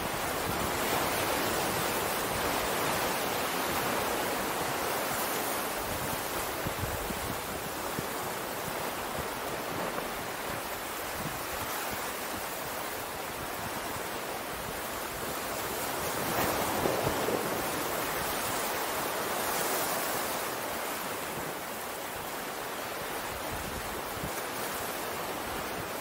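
Ocean surf washing on the shore: a continuous rush of water that swells gently a couple of times as waves come in.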